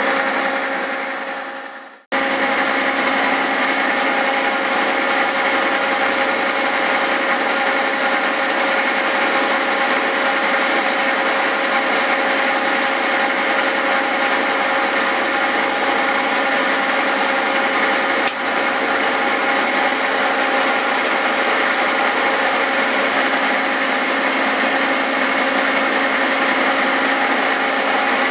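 Cincinnati horizontal milling machine running, its spline form cutter milling splines into a 4340 steel axle shaft: a steady whine of several fixed pitches over a grinding cutting noise. The sound fades away to a brief silence about two seconds in, then the steady running and cutting resumes, with one faint click past the middle.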